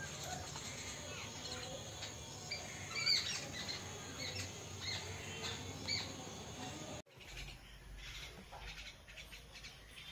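Common mynas calling with short chirps and squawks over a faint steady background. The sound drops out for a moment about seven seconds in, then comes back quieter.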